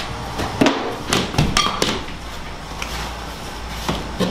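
Drywall being pulled and broken off wall studs by hand: a series of sharp cracks and snaps of gypsum board, bunched in the first two seconds with another near the end, over a steady low hum.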